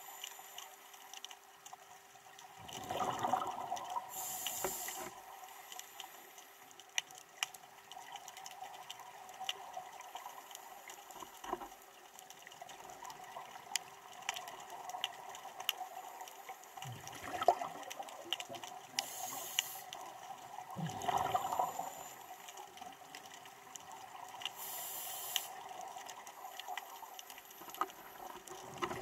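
Scuba regulator breathing heard underwater: three bubbling exhalations and three short, high hissing inhalations, over a constant faint crackling and clicking in the water.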